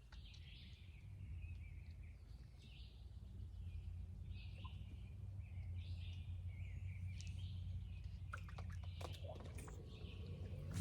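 Steady low rumble with birds chirping on and off, and a few light clicks near the end.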